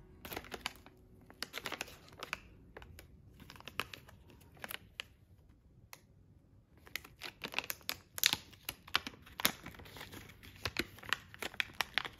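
Packaging of a cosmetics product being unwrapped by hand: irregular crinkling and tearing crackles, busier in the second half.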